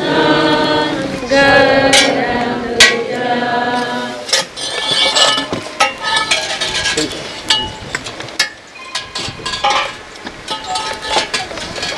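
A group of voices singing a hymn, which fades out about four seconds in. After that come scattered sharp clinks and scrapes of a long-handled digging tool working earth at the grave's edge.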